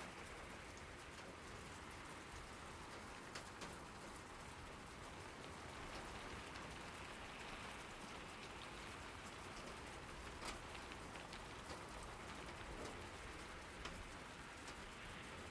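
Steady rain falling and pattering on surfaces, a soft even hiss with the clicks of individual drops scattered through it.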